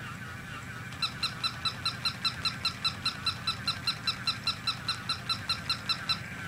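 Battery-operated toy Chihuahua running, its mechanism giving a steady wavering high whine. About a second in it starts a rapid run of short, evenly spaced electronic yips, about five a second, which stop shortly before the end.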